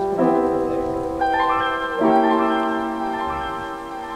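Background music of slow, held keyboard chords that change every second or two, with a short rising run of notes near the middle.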